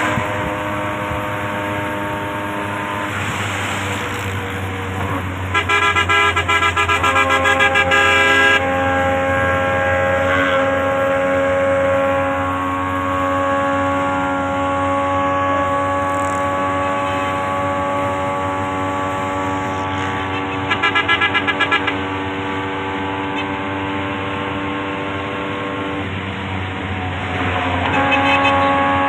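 Vehicle horns sounding in long, steady tones, with two stretches of rapid pulsing horn blasts, a few seconds in and again about twenty seconds in.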